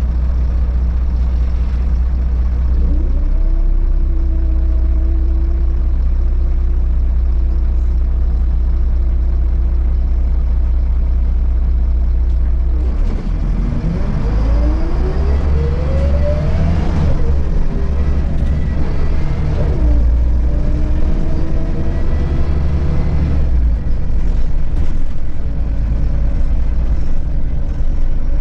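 Volvo B7RLE bus's diesel engine and transmission heard from inside the cabin while driving: a steady heavy low drone with a whine that rises through the gears as the bus accelerates. The longest climb comes about halfway through, with shorter rises near the start and again later.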